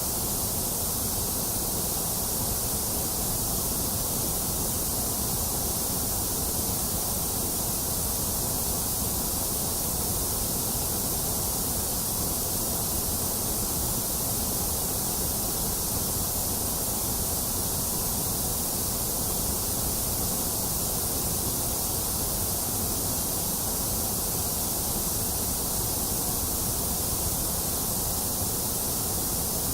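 Steady, unchanging white noise: an even hiss, brightest in the highs with a low rumble underneath.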